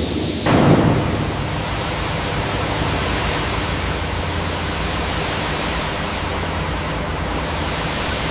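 A steady, even rushing hiss with no clear rhythm or tone. It starts with a louder surge about half a second in.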